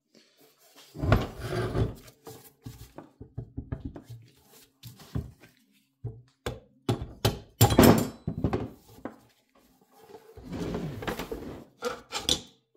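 Rubber mallet striking the head of an old AMT drill press in an irregular series of dull thunks and knocks, the heaviest about eight seconds in, to drive out a quill that is stuck fast.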